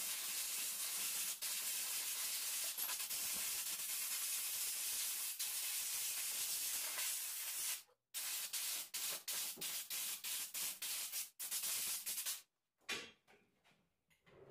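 Compressed-air blow gun blowing grit off a freshly sandblasted alternator housing. It starts with one continuous hiss of about eight seconds, then comes in a string of short on-off bursts.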